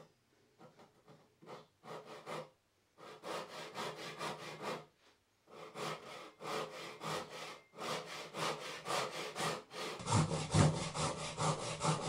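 Handsaw ripping down through a board held upright in a vise, resawing it by hand: repeated rasping strokes, about four a second. The strokes are faint at first, stronger from about three seconds in with a short pause near five seconds, and louder over the last two seconds.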